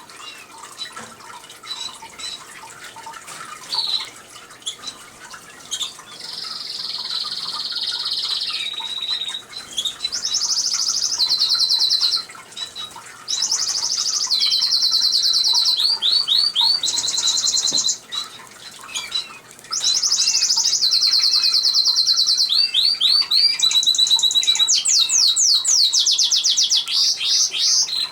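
Canary singing: scattered short chirps, then from about six seconds in long song phrases of rapid trills, each held a second or two before switching to a new pitch, with quick rising notes between them.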